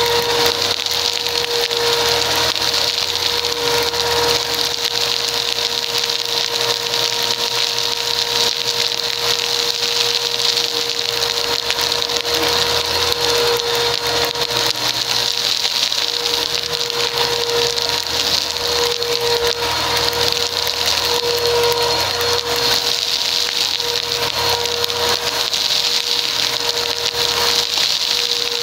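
Bissell PowerForce upright vacuum running steadily on carpet, a constant motor whine and airflow hiss, with a continuous crunchy crackle as confetti is sucked up through the brush head.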